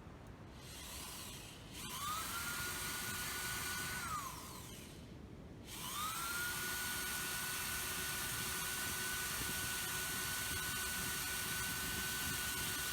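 Deko DKSD400W drill-driver motor whining as it drills metal: it spins up about two seconds in, runs steadily for about two seconds and winds down, then starts again near six seconds and runs at a steady pitch to the end.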